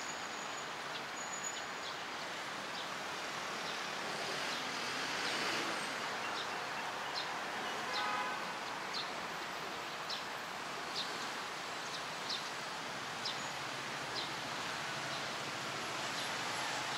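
Steady city traffic noise from a busy multi-lane road alongside, with light footsteps on the paving ticking about once a second. A short pitched chirp about eight seconds in.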